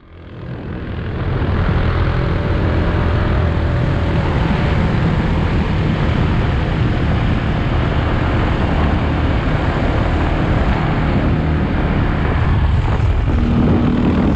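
Adventure motorcycles running at road speed, a steady engine note under constant wind rush. The sound fades in over the first second or two, and a clearer engine tone comes through near the end.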